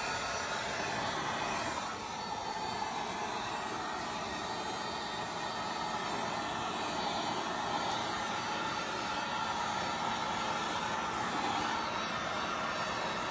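Electric heat gun running steadily, its fan blowing hot air across wet epoxy resin to push the poured colours around.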